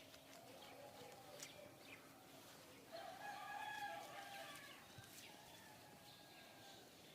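Near-quiet background with a distant, drawn-out bird call about three seconds in, lasting roughly a second and a half, and a few faint clicks.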